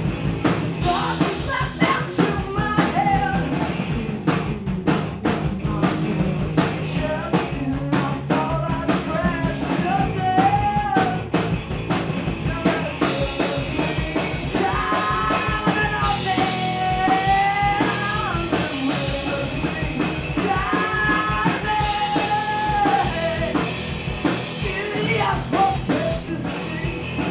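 A live punk rock band playing: electric guitars, bass guitar and a drum kit, with a voice singing in stretches over the band.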